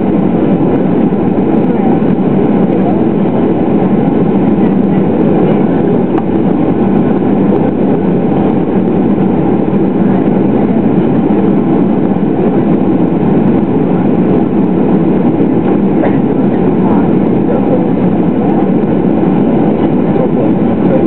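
Boeing 737-800's CFM56-7B turbofan engines running steadily, heard as a constant rumble and hiss inside the passenger cabin, with no spool-up in this stretch.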